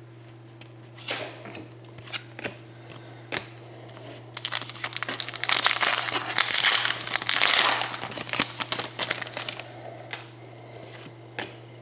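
Trading card pack wrapper crinkling as it is opened, with cards being handled and shuffled. There are scattered rustles and clicks, and a dense stretch of crinkling in the middle.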